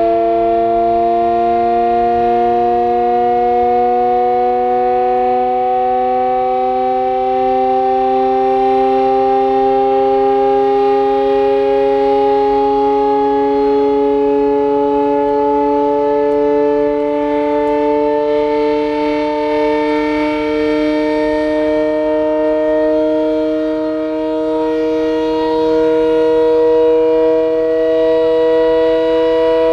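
Vintage WWII air-raid siren sounding a steady, discordant multi-note wail that climbs slowly in pitch throughout.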